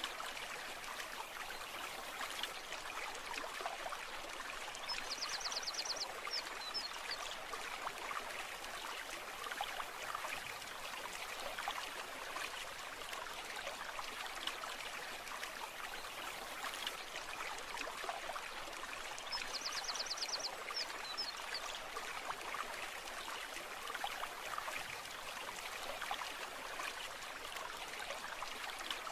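Brook: a steady rush and trickle of shallow running water. A short, high, fast trill sounds twice, about five seconds in and again about fourteen seconds later.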